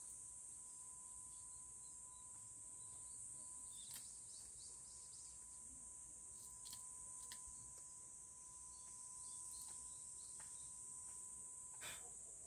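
Faint, steady high-pitched chirring of insects, with a few short clicks and snaps from green onion stalks being trimmed by hand with a knife, the sharpest near the end.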